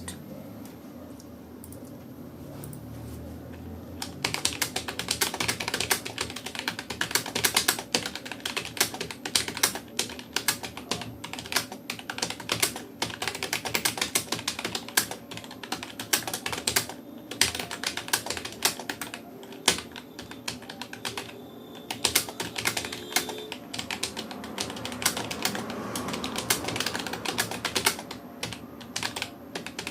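Rapoo computer keyboard being typed on fast and continuously, a dense, uneven run of key clicks that starts about four seconds in.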